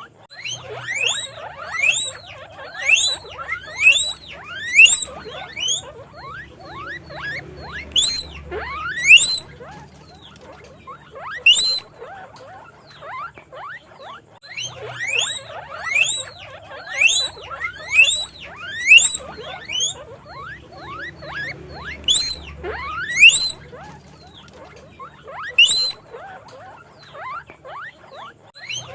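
Guinea pigs wheeking: runs of loud, rising whistled squeals, several a second, in bursts separated by short quieter lulls.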